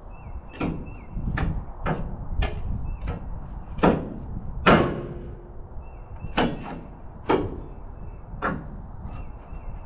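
Steel pry bar levering against a rusted steel truck frame rail, giving about ten sharp metal knocks and clanks at uneven intervals, the loudest two near the middle, as a reinforcing plate is pried off the rail.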